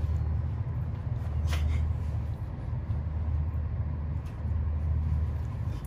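Steady low rumble of room background noise, with a couple of faint brief noises about one and a half and four seconds in.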